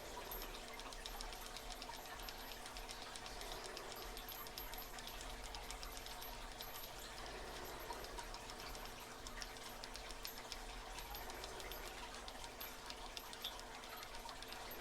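Faint, rapid clicking of a Southord tubular lock pick being turned in an American tubular lock as it is picked.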